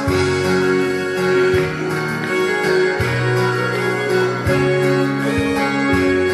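Instrumental church music with guitar-like notes over sustained keyboard and bass chords that change every second or so: an instrumental introduction or interlude to a choir hymn.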